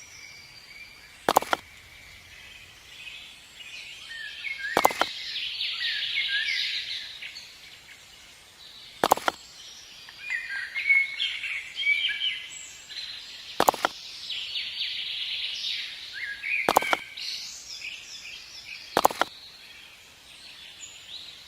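Small birds chirping and twittering, quick rising and falling calls, with six sharp clicks spread unevenly through.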